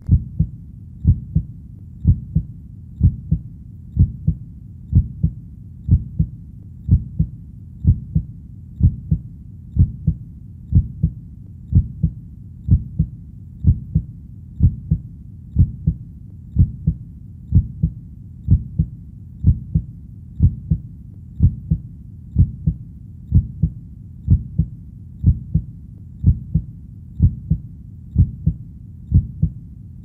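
Heartbeat: a steady lub-dub, a pair of low thumps about once a second at an even pace.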